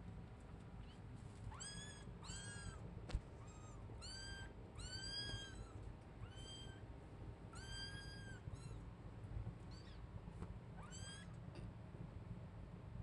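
Kitten mewing: about ten short, high-pitched mews in a row. A sharp click about three seconds in.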